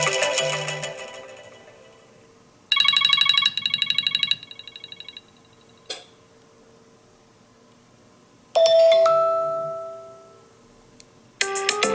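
Stock iPhone iOS 14 ringtones played one after another. A chiming melody fades out, then a fast pulsing beep pattern plays for about two and a half seconds and steps down in level partway through. About halfway through a single chime rings and dies away, and near the end another melodic ringtone starts.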